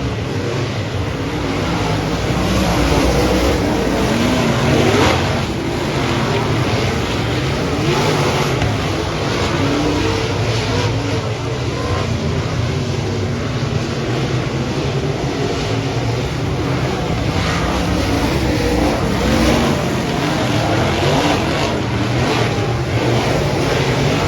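Several dirt-track race cars running at speed on the oval, their engines revving and overlapping, with pitches that rise and fall as cars accelerate and pass.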